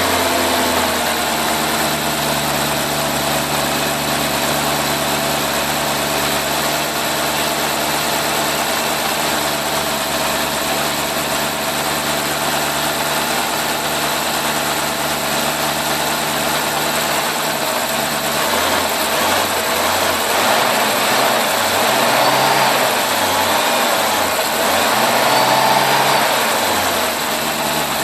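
BMW E60 550i's V8 engine idling just after a start, steady for about eighteen seconds, then running less evenly with a couple of brief swells near the end.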